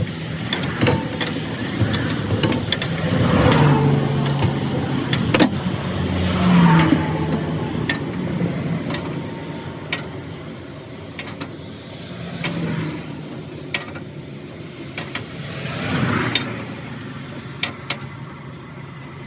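Motor vehicles passing by several times, each swelling and fading, over a steady low engine hum, with scattered sharp clicks and taps.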